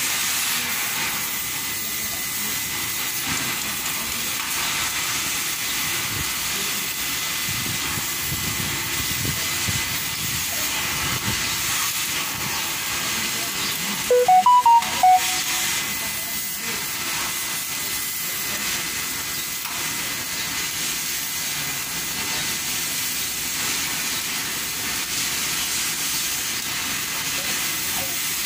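Stick welding arc on a loader bucket's teeth, a steady crackling hiss that runs on without a break. About halfway through, a brief run of loud beeping tones at a few different pitches cuts in for about a second.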